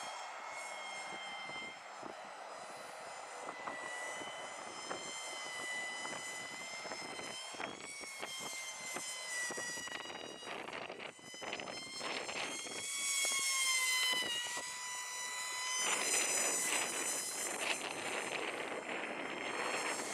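High-pitched whine of a small brushed motor and propeller on a 1S foam FPV flying wing in flight, its pitch drifting up and down as it flies. Gusty wind noise buffets the microphone and swells louder twice in the second half.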